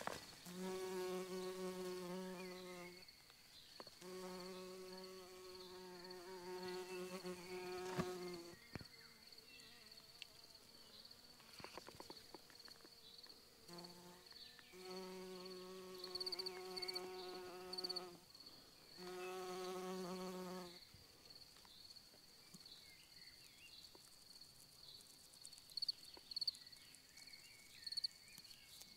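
A flying insect buzzing close by, a steady low buzz that comes and goes as it passes: about three seconds at the start, four more soon after, then two shorter passes in the middle before it is gone.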